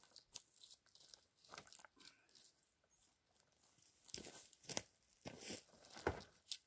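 A few faint crunches and knocks, most of them in the last few seconds, as a wooden tripod pole holding up a bushcraft bed is shifted to level it.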